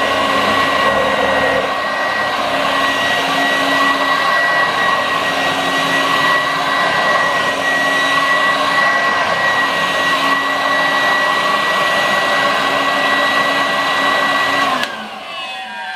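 A 1986 Vorwerk upright vacuum cleaner running steadily with a high whine over the rush of air, then switched off about fifteen seconds in, its motor winding down in a falling whine.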